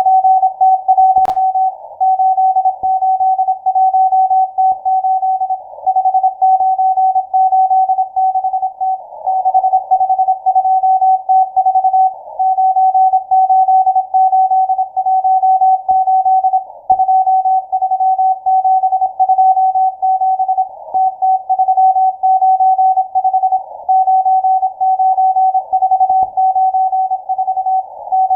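Morse code from the M12 numbers station on 12187 kHz, heard as a shortwave CW signal through a narrow receiver filter. A single steady-pitched beep is keyed rapidly on and off in dots and dashes over a narrow band of radio hiss, with a few static clicks.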